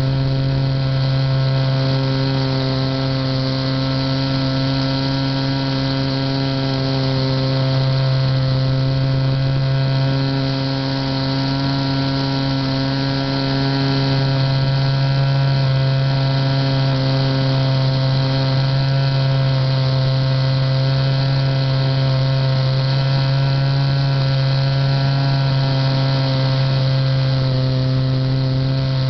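The TITAN J3 radio-controlled model plane's motor and propeller running at a steady cruise, heard from on board as a loud, even drone with a strong hum and a stack of overtones. The drone eases slightly for a few seconds in the middle.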